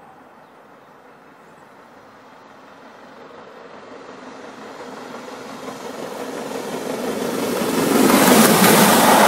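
GWR Castle-class 4-6-0 steam locomotive 'Earl of Mount Edgcumbe' and its train approaching at speed, its sound swelling steadily from faint to loud as it draws near and passes close by about eight seconds in.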